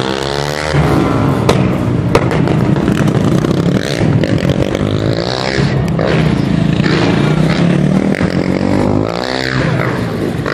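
Off-road motorcycle engines revving hard, their pitch sweeping up several times as riders accelerate to the jump ramp, with a steady engine drone in between. Two sharp knocks come about one and a half and two seconds in.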